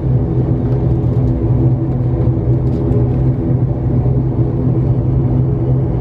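Airliner cabin noise as the plane taxis: the engines and cabin air running as a steady hum over a low rumble.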